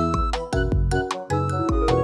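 Instrumental background music with repeated bass notes under a bright melody, without singing.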